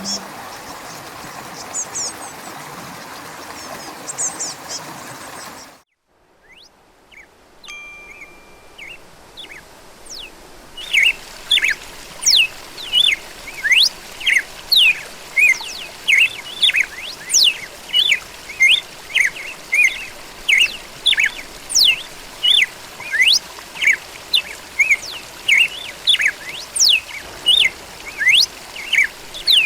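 A soft wash of noise with a few bird chirps cuts off about six seconds in. After a few near-quiet seconds, a red-cowled cardinal starts singing about eleven seconds in: loud, sharp, sweeping notes repeated about twice a second.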